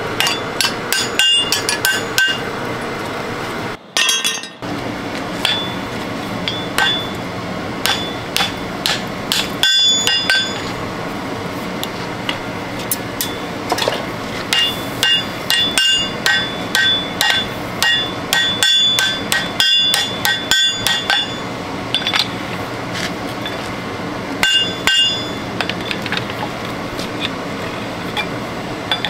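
Blacksmith's hand hammer striking hot steel on an anvil while forging a pitchfork, each blow ringing metallically. The blows come in quick runs with short pauses between, over a steady background noise.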